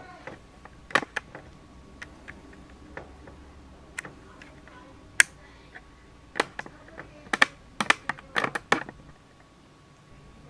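Irregular light clicks and taps, scattered at first, then coming thicker about six and a half to nine seconds in.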